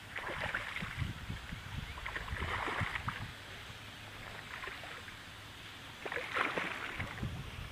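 A hooked bass thrashing and splashing at the water's surface in several separate bursts while being played on the line, the loudest splashing coming near the end.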